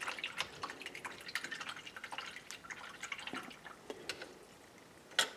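Paintbrush being rinsed in a jar of water: small irregular splashes and drips, with one sharp click near the end.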